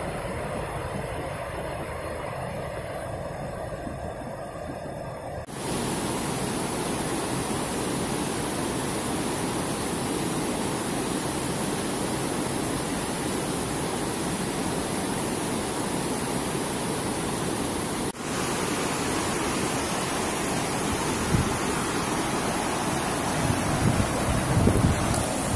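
Steady rushing of river rapids pouring over rocks, an even hiss of white water. Its sound shifts abruptly about five seconds in to a brighter rush. Near the end, irregular low bumps of wind buffet the microphone.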